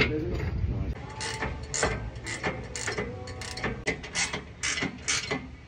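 Hand ratchet wrench clicking as it runs the rear bumper mounting bolts back onto a Ford F-150, a steady string of sharp clicks, about three a second.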